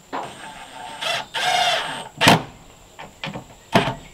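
Red cordless drill-driver running in short bursts as it drives small screws into a cabinet door latch, followed by several sharp clicks and knocks.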